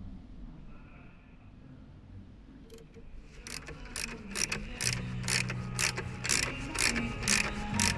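Ratchet wrench clicking as a bolt is turned, a quick run of sharp metallic clicks about three or four a second that starts a little under three seconds in.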